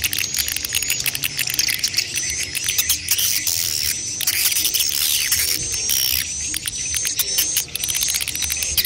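Swiftlets calling, adults with chicks: a dense, unbroken chorus of rapid clicking twitters, with short high chirps recurring about once a second.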